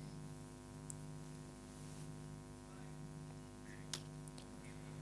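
Faint, steady electrical mains hum with many even overtones, and a single faint click about four seconds in.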